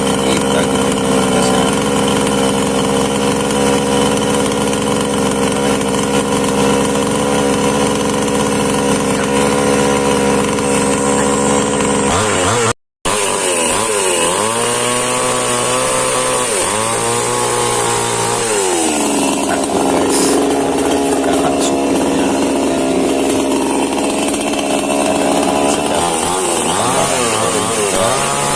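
H&L Pro mini chainsaw's small two-stroke engine running, holding a steady speed for about twelve seconds. After a momentary dropout it is revved up and back down three times in quick succession, then runs on unevenly with more small revs near the end.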